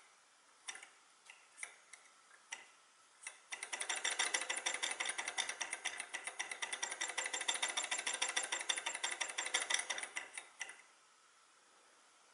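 Small alcohol-fired Stirling engine model (a cheap kit) getting going: a few separate clacks from its crank and piston linkage come quicker and quicker, then merge into a fast, even mechanical ticking clatter as it runs. The clatter stops suddenly near the end. The owner blames the kit's unsteady running on its loosely held pistons.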